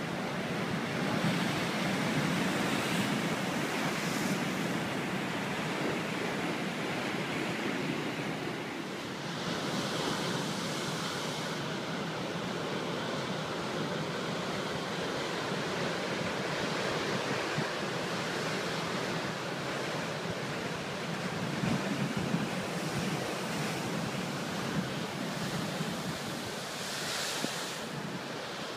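Ocean waves breaking and pounding on a rocky shoreline: a continuous rush of surf that swells with each breaking wave, strongest about ten seconds in and near the end.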